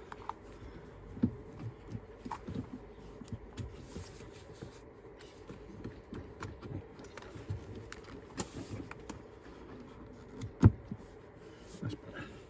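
Plastic air filter box cover being worked into place and pressed down by hand: scattered light clicks, scrapes and knocks of plastic parts, with one sharper knock near the end.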